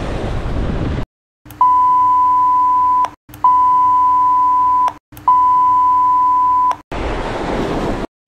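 Censor bleep: three long, steady high-pitched beeps, each about a second and a half, cut in with short gaps of dead silence between them. Wind on the microphone and surf are heard in the first second and again near the end.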